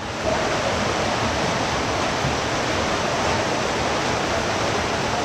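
Fast-flowing floodwater rushing down a street, a steady, even rush of water with no breaks.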